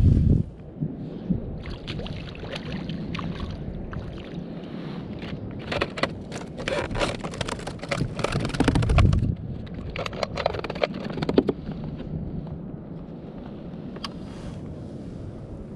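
Wind buffeting the microphone and water around a fishing kayak's hull, with two stretches of rapid clicking and scraping, about six seconds in and again about ten seconds in.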